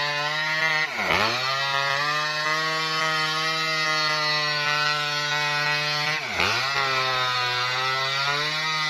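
Small two-stroke Maestro chainsaw running at high speed as it rips lengthwise along a felled coconut palm trunk. Its engine pitch drops sharply and recovers twice, about a second in and again about six seconds in.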